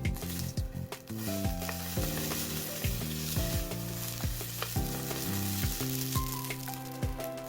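Food sizzling in a pan over a small wood-burning stove, with scattered crackles, under background music whose notes change about twice a second.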